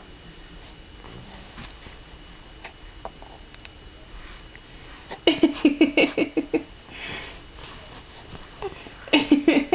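Baby giggling in two short bursts of quick, pulsing laughs, about five seconds in and again near the end.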